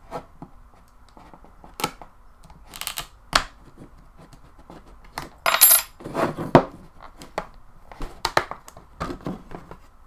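Sharp clicks, scrapes and metallic clinks as the plastic back cover of a 2012 Nexus 7 tablet is pried off with a razor blade and a thin metal bracket, the cover's clips snapping loose one after another. The loudest sound is a ringing metallic clatter about halfway through.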